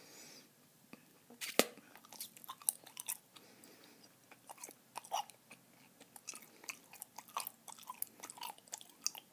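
Close-up chewing of a large wad of Bazooka bubble gum, wet smacks and irregular clicks. One sharp, loud gum snap comes about a second and a half in, louder than the rest.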